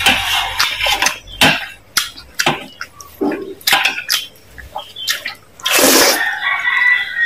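Close-miked eating of instant noodles in soup: wet chewing and sharp clicks, then a loud slurp of noodles about six seconds in.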